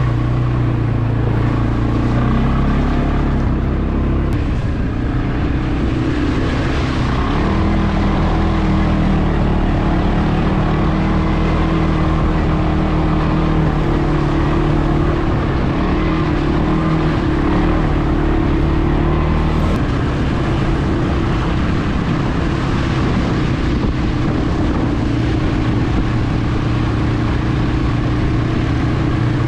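CFmoto CForce 520 ATV's single-cylinder engine running while the quad is ridden, its note rising and falling with the throttle.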